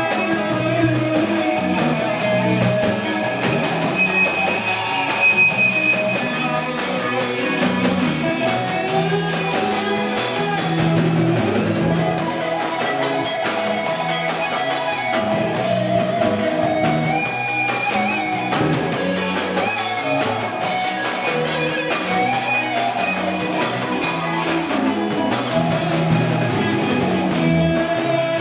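Live rock band playing: amplified electric guitars and an electric bass over a drum kit, with a steady beat.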